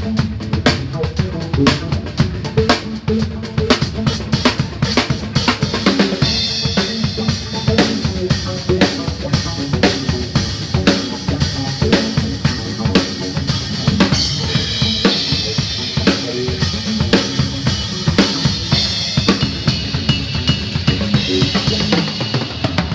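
Drum kit played in a steady beat, with bass drum, snare and rimshots, and other band instruments underneath.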